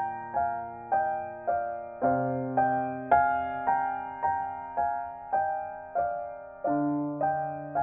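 Gentle solo piano background music, a repeated broken-chord figure of about two notes a second, with the chord changing about two seconds in and again near the end.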